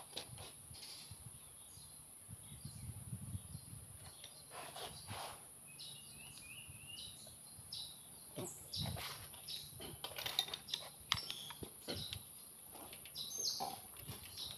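Scattered faint metallic clicks and taps from the rocker arms of a Komatsu grader's six-cylinder diesel engine being rocked by hand to feel for valve lash. Birds chirp briefly in the background.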